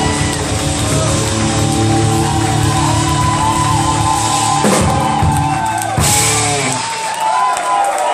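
Live rock band with drums, bass, guitar, keyboards and a female singer playing the last bars of a song. It ends on a crash about six seconds in and the bass and drums drop out; the crowd starts cheering as the band stops.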